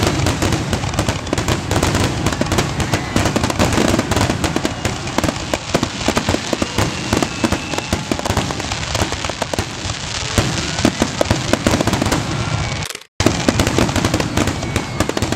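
Fireworks finale barrage: a dense, continuous run of bangs, pops and crackling. It breaks off for a split second near the end, then resumes.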